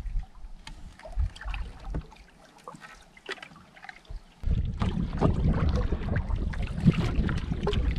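Canoe being paddled: water trickling and splashing off the paddle and lapping at the hull. About four seconds in it turns suddenly louder, with a low wind rumble on the microphone over the water sounds.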